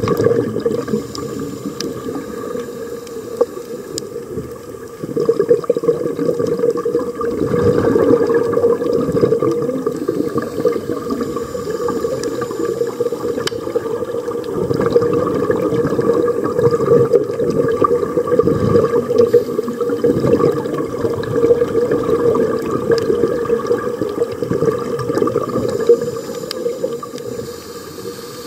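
Underwater sound picked up by a scuba diver's camera: a continuous rushing, gurgling water noise that swells and eases every few seconds, typical of the diver's exhaled regulator bubbles.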